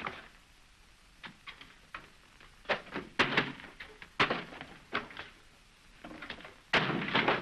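Wooden knocks and thuds as a double bass is grabbed and handled, ending in a loud crash about seven seconds in as it is swung and smashed.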